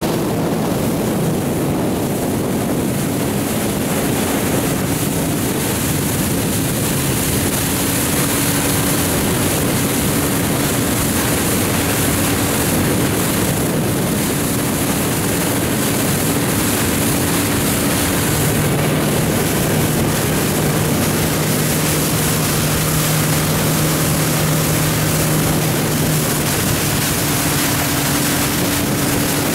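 Motorboats running at planing speed: a steady engine hum under the rush of water and wind. A lower engine note joins for several seconds past the middle.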